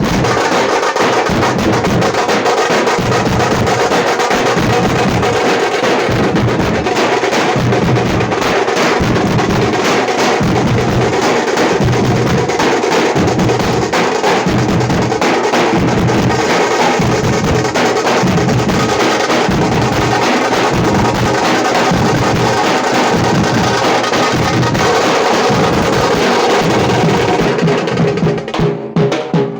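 Tamate, the South Indian folk frame drum, beaten with sticks in a fast, dense rhythm over a steady low pulse. Near the end the playing breaks up into separate, sharper strokes.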